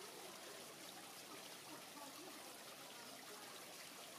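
Dome (mushroom) fountain jets: sheets of water spilling over the bell shapes and splashing into a shallow basin, a faint steady splashing.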